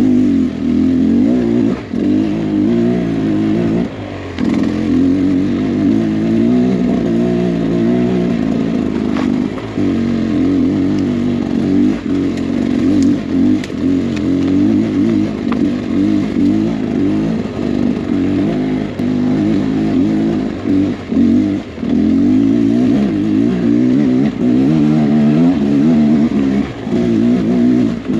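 Beta X-Trainer 300 two-stroke dirt-bike engine under way on a trail, its revs rising and falling constantly as the throttle is worked, with brief dips where it is rolled off.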